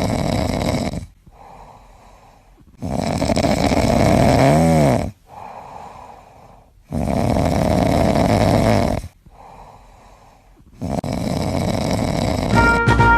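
A cat snoring loudly in a steady rhythm: four long snores about four seconds apart, with quieter breaths between.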